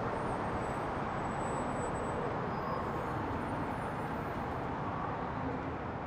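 Steady road traffic noise: a constant hum of passing vehicles, with no single vehicle standing out.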